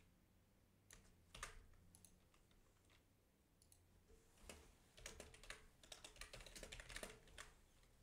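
Faint typing on a computer keyboard: a few keystrokes about a second in, then a fast run of keys from about four and a half seconds in to near the end.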